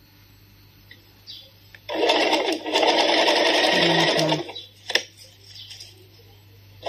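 Electric domestic sewing machine stitching a seam in fabric. It runs for about two and a half seconds starting about two seconds in, gives a short click near five seconds, and starts running again at the very end.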